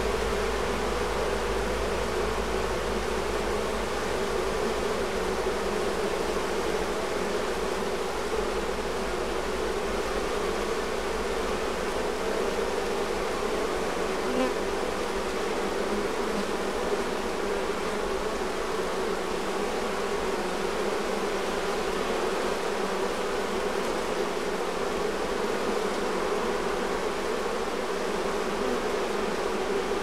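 A crowd of honeybees humming steadily at a hive entrance, as a dense stream of bees walks into the hive.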